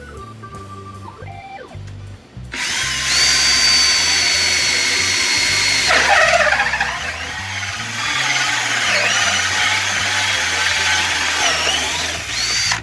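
Electric drill boring a hole, running for about ten seconds after a quiet start; its high motor whine dips in pitch about a third of the way through and wavers as the bit bites. Cuts off just before the end.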